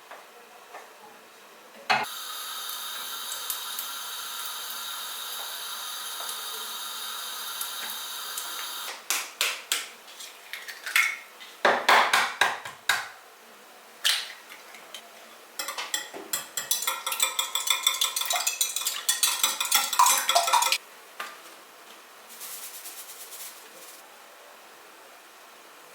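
Kitchen dish and cutlery sounds. For about seven seconds there is a steady whirring hum with a high whine, like a small kitchen appliance running. It cuts off, and a series of sharp clinks of dishes and cutlery follows. Then, for about five seconds, comes a fast run of clinks of a utensil against a dish, as in stirring or whisking.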